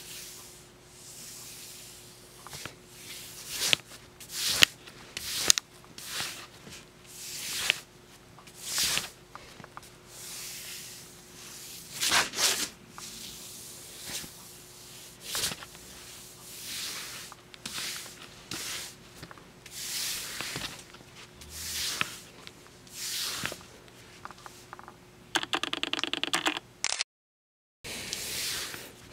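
Quick, irregular scratching and swishing strokes on a wooden floor as a cat-teaser toy is dragged and flicked about, some strokes short and some drawn out, over a faint steady hum. Near the end a short buzz lasts about a second and a half, then the sound drops out for about a second.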